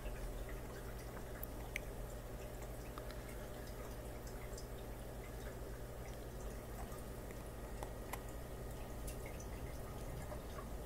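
Aquarium equipment running: a steady low hum with water noise and scattered faint clicks.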